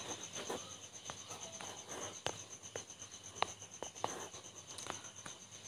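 Faint, irregular fingertip taps on a phone touchscreen: about a dozen light clicks, spaced unevenly, over a faint high-pitched pulsing tone.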